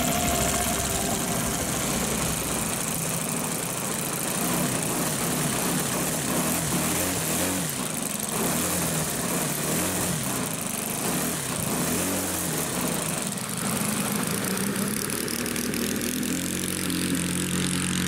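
NGH 38cc two-stroke petrol engine of a ShockCUB RC plane running at low throttle, its pitch wavering unevenly: a slightly rough-running engine.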